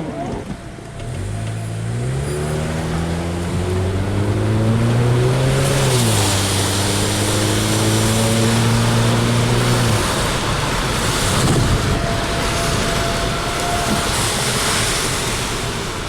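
Car engine accelerating, its pitch climbing for about four seconds, then dropping at a gear change and running steadily until it fades about ten seconds in, with a rushing road and wind noise.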